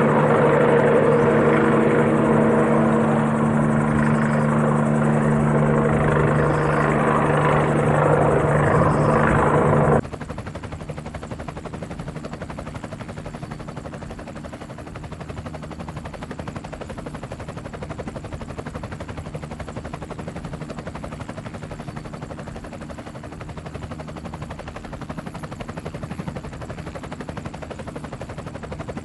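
Helicopter running, loud and steady with a sustained turbine whine and engine tones. About ten seconds in it cuts abruptly to a quieter helicopter recording, an even rotor chop with a fast regular beat.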